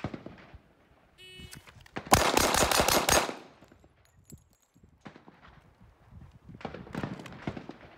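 A shot timer's start beep, then about a second later a fast string of six pistol shots from a Kahr PM9 compact 9mm, fired in just over a second: a Bill Drill.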